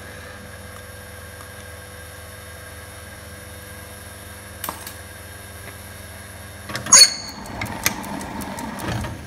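A machine tool's motor humming steadily. There is a single click partway through, then a stretch of metallic clinks and scraping with a brief high ringing near the end, typical of work on brass stock.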